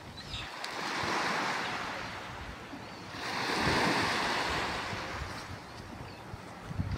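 Small waves breaking and washing up onto a sandy beach, the surf swelling twice: about a second in and again a little past the middle.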